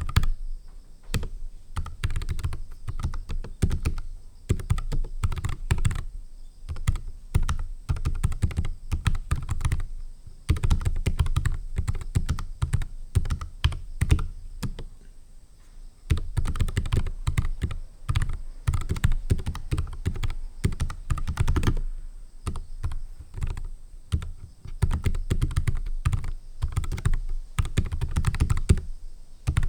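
Continuous typing on a NuPhy Air 75 low-profile mechanical keyboard with Gateron Brown tactile switches: rapid key clicks in runs, with short pauses about ten, sixteen and twenty-two seconds in.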